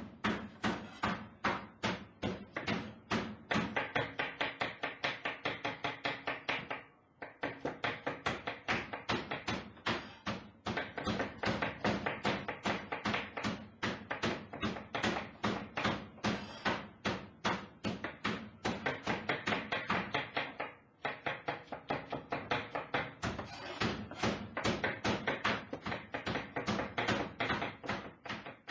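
A knife chopping onions on a cutting board mixed with a meat mallet pounding cutlets flat: fast, overlapping knocks, several a second, that break off briefly twice.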